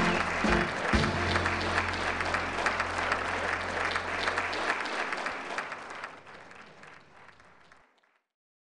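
Audience applauding, with low held notes from the band sounding underneath for the first few seconds; the applause fades away and stops shortly before the end.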